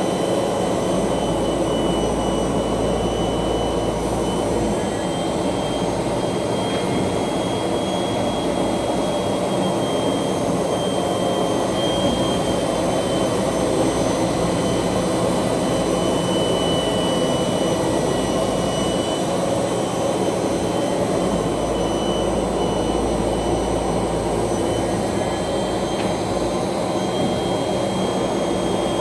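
ROBA Fentech profile sanding machine running steadily while sanding wooden window profiles: a dense, even machine noise with a steady high whine above it. A deep hum swells in twice, once near the start and again about two-thirds of the way through.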